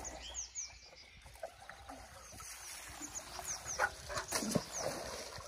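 Water gurgling and splashing as a pump's suction hose is lifted and worked in the shallow pond water, loudest about four seconds in. Birds chirp in the background.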